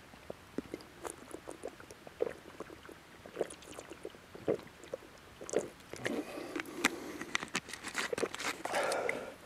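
Crunching footsteps on a hiking trail, irregular and sparse at first, then coming thicker from about halfway through.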